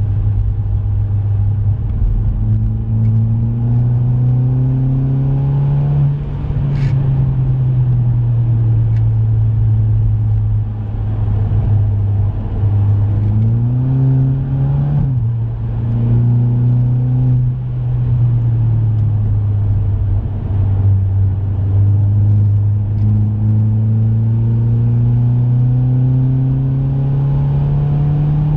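2016 Volkswagen Polo GTI's turbocharged four-cylinder engine heard from inside the cabin while being driven hard on track: the revs climb and fall back several times, then rise steadily over the last ten seconds as the car accelerates.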